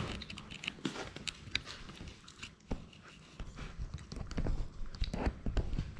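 Labrador puppies chewing and mouthing close to the microphone: irregular small clicks, scratches and scuffs, with a louder cluster about five seconds in.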